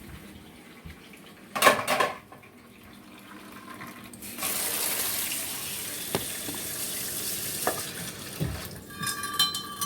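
A brief clatter of kitchenware, then a kitchen tap running into a sink for about five seconds, followed by a few ringing clinks of dishes near the end.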